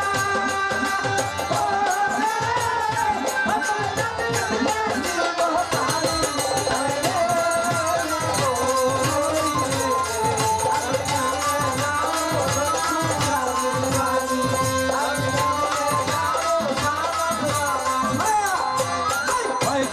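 Folk-style song: a voice singing a bending melody over a steady run of deep hand-drum strokes that slide down in pitch, with quick clicking percussion above.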